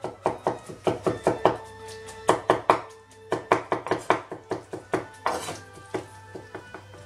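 A large kitchen knife chopping rapidly through soft roasted aubergine flesh onto a wooden cutting board, mashing it into a pulp. The strikes come in quick runs of about five a second with short pauses between them, thinning out near the end.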